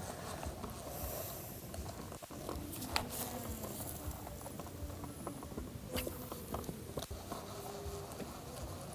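Baitcasting reel through a cast and retrieve: the spool and gears whirr and ratchet, with sharp clicks about three and six seconds in, over a steady low rumble.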